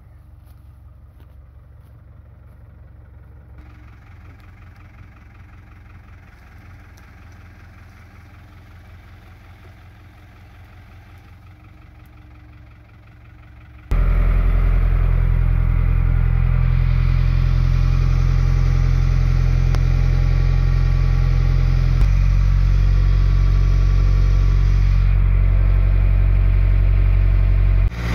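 Tractor engine running steadily while towing an old truck. It is moderate at first, then about halfway through it jumps to loud, heard from inside the tractor's cab.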